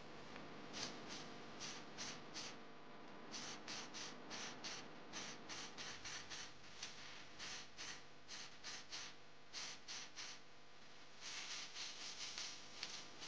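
Aerosol spray paint can hissing in many short bursts, a few a second, in runs broken by brief pauses.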